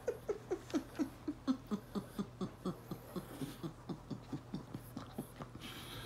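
Small dog whimpering in a fast rhythm of short whines, each dropping in pitch, about four or five a second, fading out near the end.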